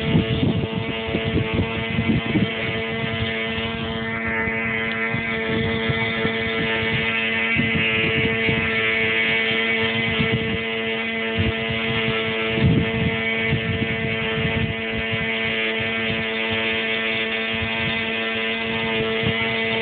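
Electric RC aerobatic plane's motor and propeller whining steadily in flight, with a brief sweep in pitch about four seconds in as it passes. Gusts of wind buffet the microphone.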